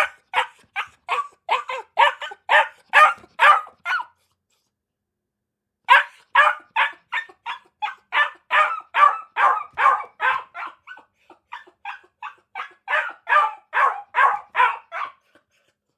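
Dog barking in a fast, even series of short barks, about three a second, with a pause of about two seconds a few seconds in.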